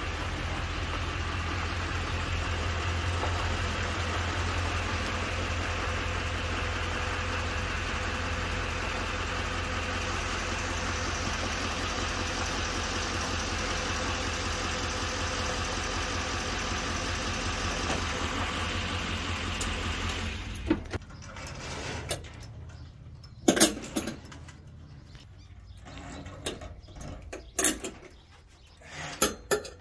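Electric hoist motor running steadily as it lowers a rooftop tent onto the truck's roof racks, stopping abruptly about two-thirds in once the tent sits down. Then scattered metallic clinks and knocks as the hoist chains are handled.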